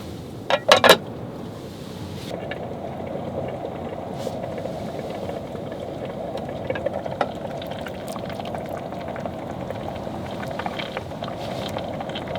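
A few sharp clicks about half a second in, then a pot of stew on an electric grill pot simmering: a steady bubbling hiss with scattered small pops.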